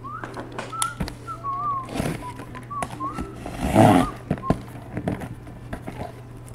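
A man whistling a wavering tune while a knife slices through the sealed cardboard case, with scraping and clicking of cardboard. The loudest is a scraping burst about four seconds in.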